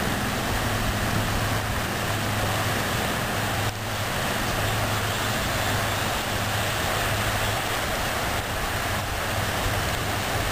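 Steady outdoor background noise: a continuous rushing hiss with a low hum underneath.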